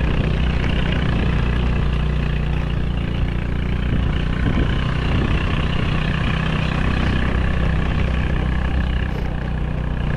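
Motorcycle engine running steadily at an even pitch while being ridden, with a constant rushing noise over it.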